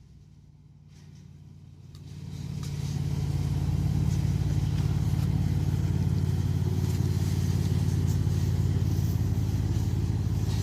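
A vehicle engine running steadily. The sound fades in over the first few seconds and then holds at a constant speed.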